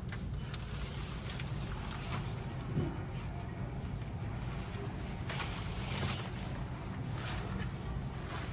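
Steady low rumble of background noise with intermittent rustling of fabric as jackets are handled and tried on.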